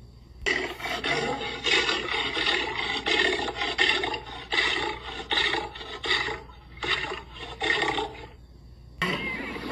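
Lion calling in a rapid run of rasping grunts, about two a second, starting half a second in and stopping shortly before the end. A different, steady noisy sound starts just before the end.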